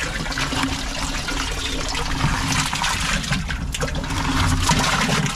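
Water pouring in a stream from a plastic bucket into a barrel of water, splashing steadily.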